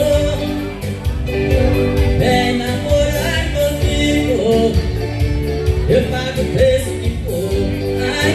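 Live forró band music with a steady dance beat, amplified over a hall's PA system.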